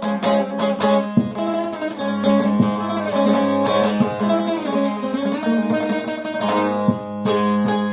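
Long-necked bağlama (uzun sap saz) played in an improvisation, with frequent quick strokes picking out a melody over a steady low note that rings on underneath.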